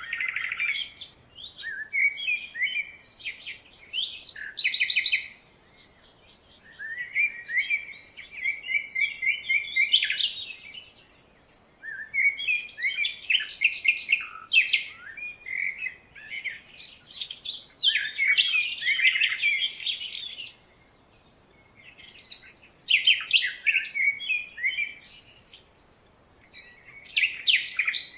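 Songbirds singing: bursts of quick, high chirps and trills, broken by short pauses every few seconds.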